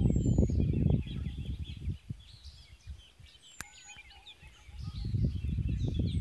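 Many small birds chirping, under gusts of wind rumbling on the microphone that die away about two seconds in and pick up again near the end. A single sharp click about three and a half seconds in.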